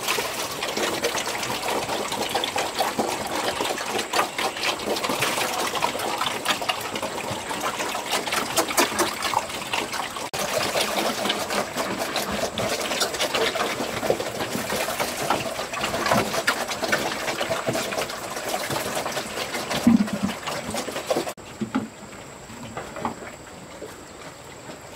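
A group of pigs slurping and chomping wet feed at a trough: a dense, continuous run of wet smacking and clicking. It drops suddenly to quieter background about 21 seconds in.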